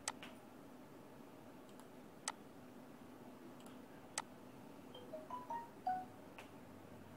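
Four sharp computer mouse clicks about two seconds apart, made while choosing items from web-page drop-down lists, over a low steady hum. A few short, faint tones come between about five and six seconds in.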